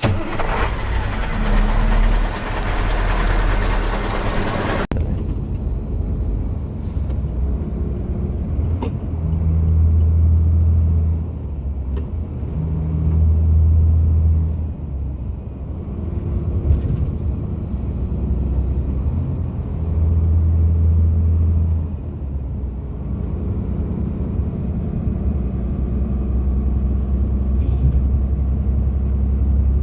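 Heavy truck engine running on the road, a low rumble that swells and eases every few seconds as it pulls. It opens with about five seconds of loud, dense hiss that cuts off suddenly.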